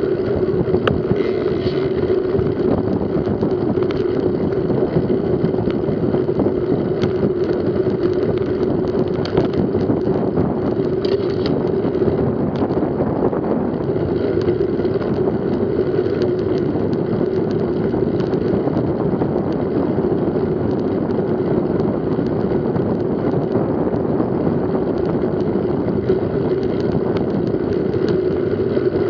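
Steady rush of wind over the microphone and a constant drone from mountain bike tyres rolling on an asphalt cycle path, heard from a camera mounted on the moving bike, with a few faint ticks from the ride.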